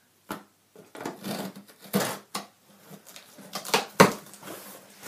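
Irregular knocks, clicks and rustling from a large TV box and its packaging being handled and opened, the loudest a sharp knock about four seconds in.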